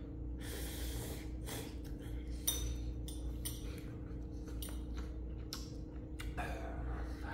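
Someone eating instant ramyun noodles: irregular slurps and sniffs, with utensils clinking against the bowl and a sharp clink about two and a half seconds in. A steady low hum runs underneath.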